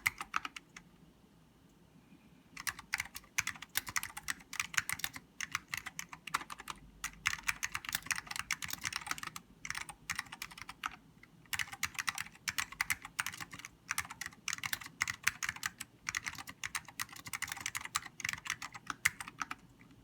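Typing on a King Saver keyboard with salmon Alps switches and dye-sublimated keycaps: rapid key clicks in bursts. There is a pause of about a second and a half just after the start, and short breaks around the middle.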